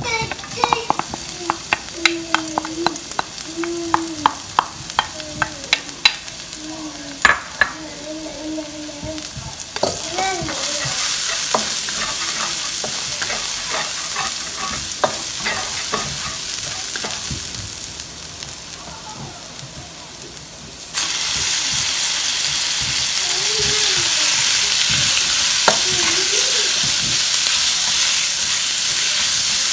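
Stir-frying in a hot pan: a spatula clicks and scrapes against the pan at first. A loud sizzle starts about ten seconds in and gets suddenly louder about twenty seconds in, as food hits the hot oil.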